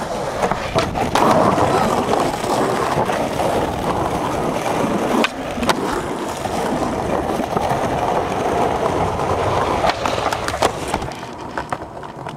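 Skateboard wheels rolling over smooth concrete with a steady rumble. Sharp clacks of the board hitting the ground come in pairs about five seconds in and again about ten seconds in, as a trick is popped and landed.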